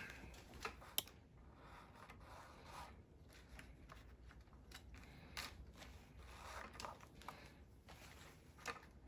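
Faint rustling and a few soft clicks of hand inseaming: stitching thread drawn through the welt and insole, and an awl being handled.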